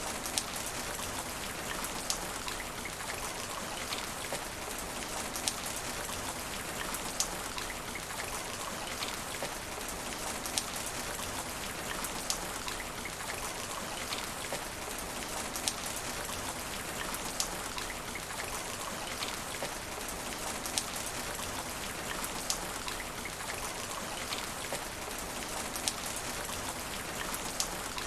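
Steady rain falling on asphalt pavement, an even hiss of drops. A sharper drip tap stands out about every second and a half to two seconds.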